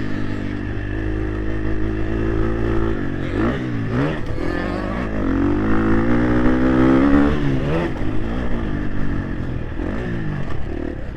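Motocross bike engine running under riding load. The revs dip about three seconds in, climb steadily for a couple of seconds, then drop off near eight seconds.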